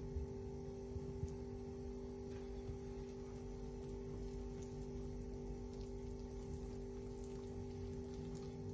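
Silicone whisk stirring cocoa powder and flour into a wet chocolate pancake batter in a glass bowl: soft, wet mixing with a few light ticks. A steady hum runs underneath.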